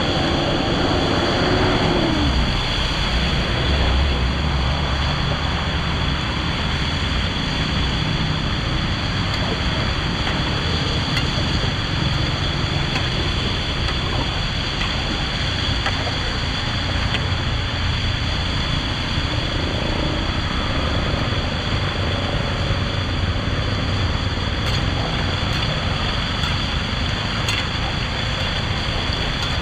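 Steady rushing of floodwater pouring into a cleared storm drain, an even noise that holds without a break.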